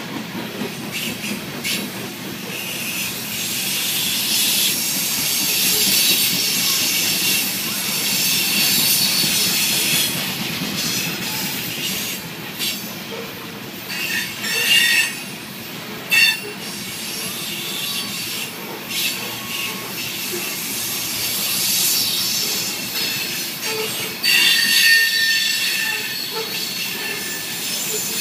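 Loaded coal hopper cars rolling past: the steady noise of steel wheels on rail, broken by high-pitched wheel squeal that is loudest about halfway through and again near the end.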